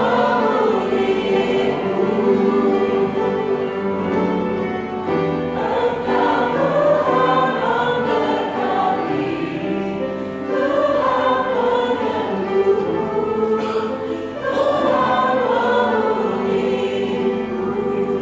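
Choir singing a gospel praise song in sustained phrases, with instrumental accompaniment.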